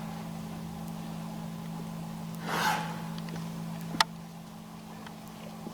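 A cow snorts once, a short noisy blast of breath about halfway through, over a steady low hum. A single sharp click comes about four seconds in.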